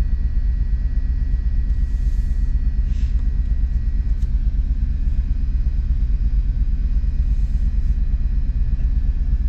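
Steady low rumble of a vehicle's engine and tyres heard from inside the cab while it drives slowly along a road.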